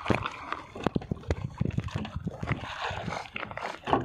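Irregular knocks and clatter with water sloshing, as a fishing handline is worked by hand with a handheld reel on a small outrigger boat.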